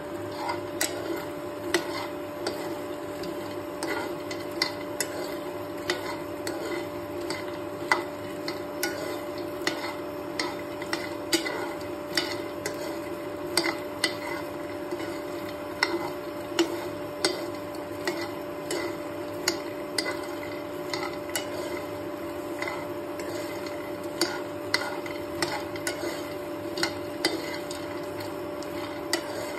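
Metal spoon stirring dry makhana (fox nuts) in a nonstick frying pan, with a light clack of spoon against pan about once a second, over a steady hum.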